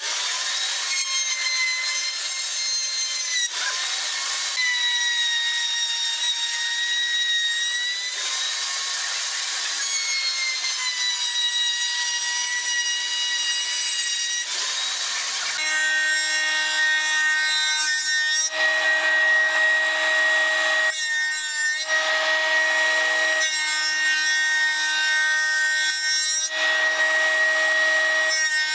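Wood shaper (spindle moulder) cutting a profile into a pine board's edge. For about the first half its whine sags and recovers in pitch as the cutter takes load. After that a steadier whine from a shaper with a power feeder takes over, broken by a few short breaks.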